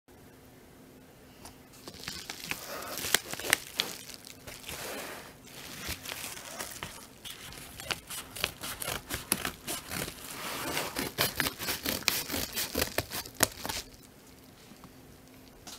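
Padded kraft mailer envelope being handled: its paper and bubble lining crinkle, rustle and crackle in quick bursts. The crackles are busiest in the second half and ease off near the end.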